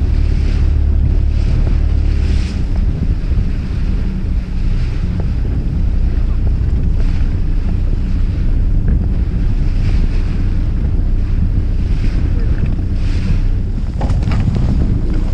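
Fishing boat's engine running with a steady low hum, with wind buffeting the microphone and waves washing against the hull in recurring gusts of hiss. A brief knock near the end.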